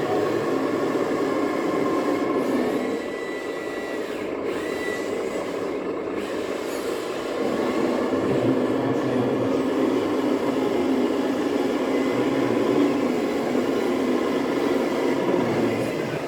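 Steady engine-like running noise from 1:14 scale RC trucks. It drops a little about three seconds in and picks up again around eight seconds.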